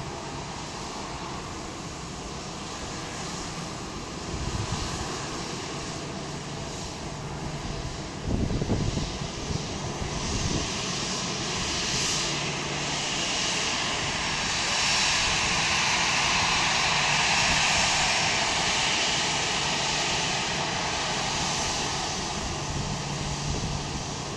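Airbus A320 jet engines running at taxi power as the airliner rolls slowly past, a steady rushing hiss with a whine in it that swells as the aircraft draws closest, about two-thirds of the way through. A low rumble of wind on the microphone breaks in about eight seconds in.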